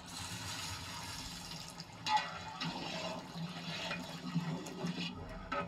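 Water poured from a metal bowl into a large metal cooking pot, splashing and filling, with a louder splash about two seconds in.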